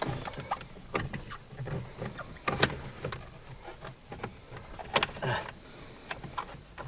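Plastic steering-column trim on a 2008 Ford Focus being worked and pressed back into place: a run of scattered clicks and knocks, with two sharper snaps about two and a half and five seconds in.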